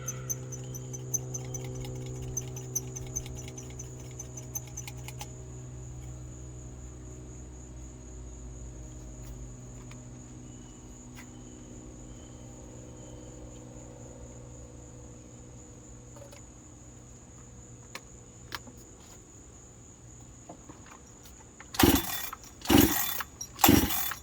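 Crickets chirping steadily over a low hum, with light clicking in the first few seconds. About 22 seconds in, a freshly rebuilt Husqvarna 372XP two-stroke chainsaw is pull-started: a few loud, short bursts as the engine sputters and tries to catch on its first start.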